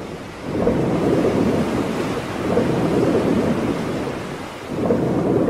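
Rushing, rumbling surge of ocean waves that swells up about half a second in, holds, dies down briefly near the end and then swells again.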